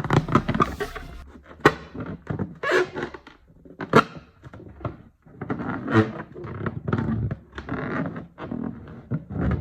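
Inflated rubber balloon being worked by hand as a sound effect: a run of irregular thumps with rubbery squeaks, the sharpest knocks about two, four and six seconds in.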